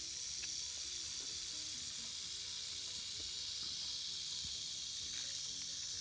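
Timber rattlesnake rattling its tail: a steady, unbroken high dry buzz. It is the defensive warning of a snake that feels threatened by someone close to it.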